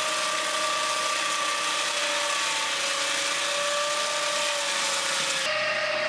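Peterson ASM swingblade sawmill, driven by a 20 hp three-phase electric motor, running its circular blade through a log: a steady whine over an even sawing hiss. About five and a half seconds in, the hiss falls away and the whine carries on a little higher.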